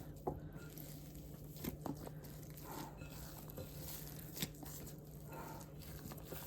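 Faint squishing and tearing of wet whole wheat sourdough dough being stretched and folded by hand, with a few light taps.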